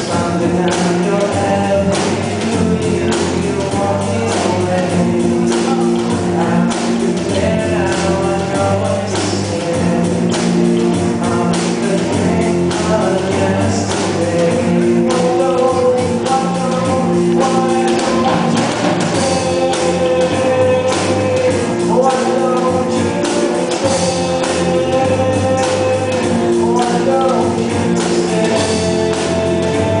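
Rock band playing live: held chords over a steady drum beat.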